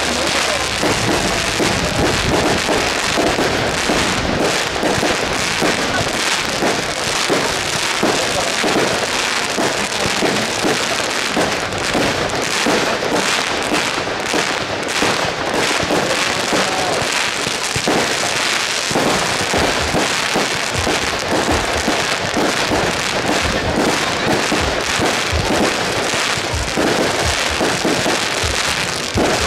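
Fireworks going off: a dense, continuous crackle of many small pops and bursts, with no pause.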